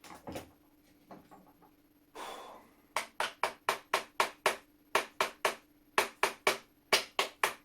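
A small hammer tapping on the rusted, stuck hammer (cock) of an antique flintlock lock to work it loose. The taps come quickly, about four a second in short runs with brief pauses, starting about three seconds in. They follow a few knocks and a brief scraping rush of handling.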